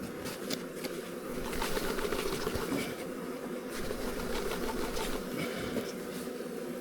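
Mass of honeybees from a freshly opened package buzzing steadily, a dense hum as the disturbed bees are shaken into the new hive, with a few faint ticks.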